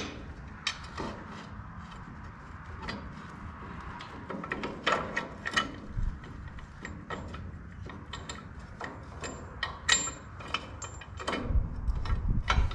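Scattered metal clicks and clanks of machine parts being handled and fitted together during reassembly. A louder low rumble starts near the end.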